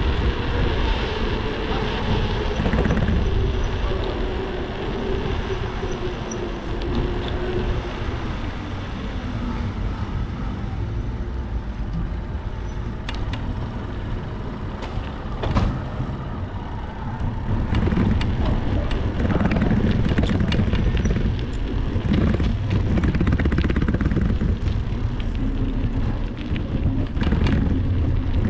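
Wind buffeting the microphone over low road rumble from a bicycle ride on rough asphalt, with scattered rattles and knocks, the strongest about halfway through. A steady hum slowly drops in pitch over the first several seconds.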